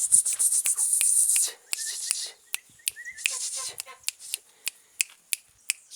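Someone calling puppies without words: a run of sharp tongue clicks and kissing sounds, mixed with hissed "psst" bursts in the first half and a few short squeaky chirps near the middle.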